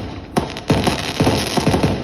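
Display fireworks going off in quick succession: several sharp bangs about half a second apart, each trailing off with a rumble and crackle. Music plays underneath.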